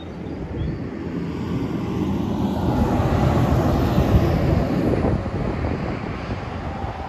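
A vehicle passing over a road bridge: a rumbling noise that swells to a peak about four seconds in and then eases off, with wind on the microphone.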